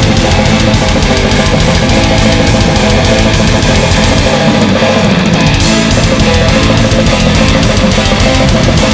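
Heavy metal played live by a full band: distorted electric guitars and fast, dense drumming, loud and unbroken.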